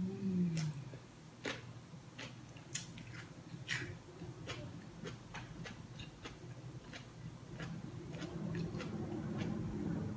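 Close-miked chewing of a breaded pork cutlet, with scattered sharp clicks from the mouth and from chopsticks on the plate. A short falling hum at the start.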